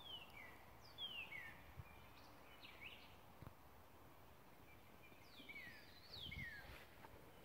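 Faint birdsong over near silence: a few short chirps that slide downward in pitch, in small groups near the start, about three seconds in, and again about five to six seconds in.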